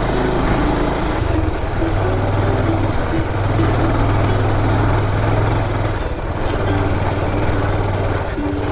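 Motorcycle engine running at low speed, its pitch shifting a little now and then, with road and wind noise over it.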